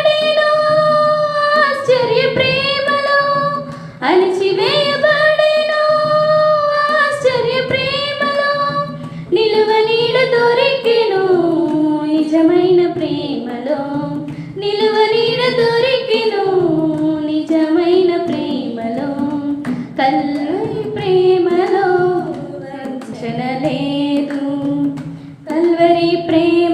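Several women singing a Telugu Christian devotional song into one microphone. They hold long notes for the first several seconds, pausing briefly once, then move into a more flowing melody.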